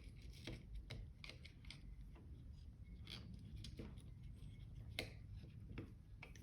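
Faint scattered clicks and light rustling of small parts being handled, with the sharpest click about five seconds in.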